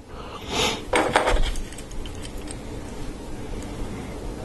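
Small plastic LEGO Technic parts clicking and clattering in the hands as they are handled and pushed together: a few sharp clicks in the first second or so, then quieter handling over a low steady rumble.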